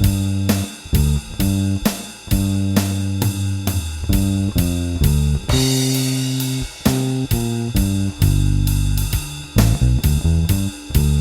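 Electric bass with a Seymour Duncan Designed pickup, run through a Studio Bass compressor, playing a blues-rock bass line of sustained notes over a drum kit. The drums keep about three hits a second, with a cymbal crash about five and a half seconds in.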